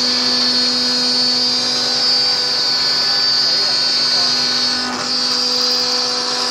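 CNC cutting machine running steadily, a high-pitched whine over a lower hum; the lower hum drops out about five seconds in.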